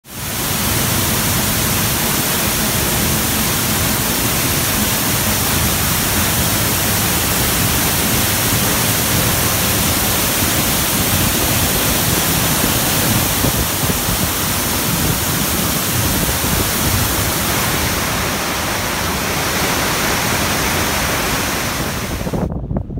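Waterfall rushing steadily, heard close up from behind the curtain of falling water. The sound cuts off suddenly just before the end.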